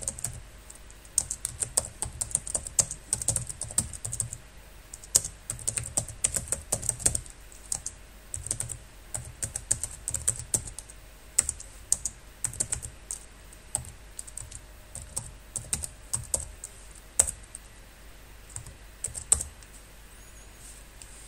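Computer keyboard typing: quick bursts of key clicks separated by short pauses, ending with one louder key press near the end.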